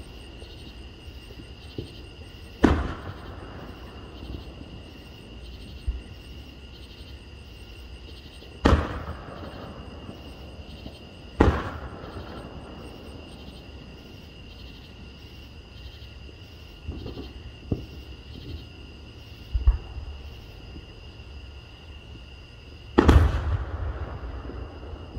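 Aerial fireworks shells bursting overhead: sharp booms every few seconds, each trailing off in a rumble, with fainter pops between them. Near the end comes a quick cluster of bangs that fades more slowly.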